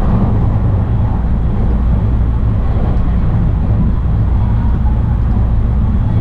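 Steady low running noise of a JR West rapid train, heard from inside the carriage as it travels along the line, wheels on rail.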